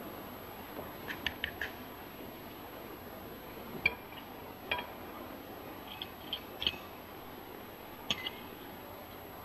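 Knife and fork clinking against a china plate while eating: a quick run of four clinks about a second in, then scattered single clinks, over the steady hiss of an old film soundtrack.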